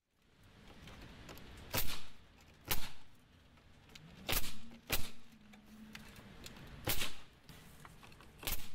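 Metabo HPT pneumatic framing nailer firing siding nails into fiber cement lap siding. There are six sharp shots at irregular intervals of about half a second to two seconds.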